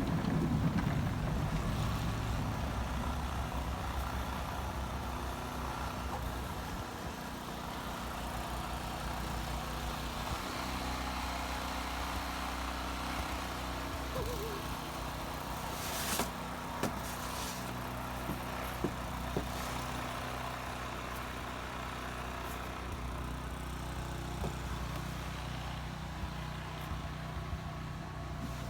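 Snowplow truck engine running steadily, loudest in the first couple of seconds. A brief sharp noise comes a little past halfway, followed by a few light clicks.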